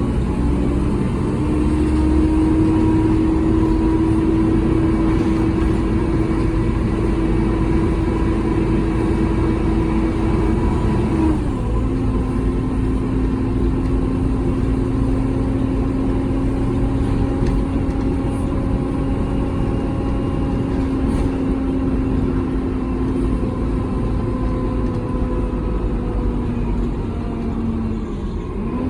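Volvo B7TL double-decker bus with a Voith automatic gearbox driving along: a steady whine from the engine and gearbox that climbs slowly, drops in pitch about eleven seconds in at a gear change, then sinks gradually, with another shift near the end.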